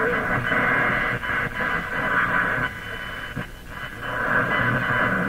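Canadian GE G-40 vacuum-tube radio playing static and hiss through its loudspeaker, with a steady whistle tone. The level drops in the middle and comes back up about four seconds in as the replacement volume control is turned, which works smoothly.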